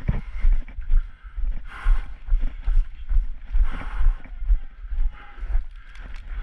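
Footsteps and gear jostling a body-worn camera's microphone as a player moves: low thumps about two a second, with rustling hiss.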